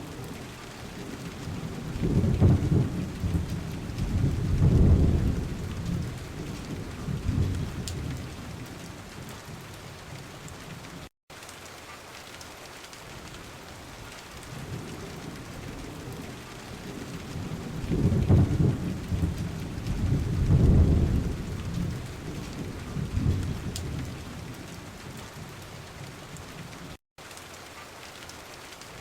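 Recorded steady rain with rolling thunder: two long, deep rumbles, one a couple of seconds in and another past the middle. The sound cuts out for an instant twice, the mark of a looped sound track.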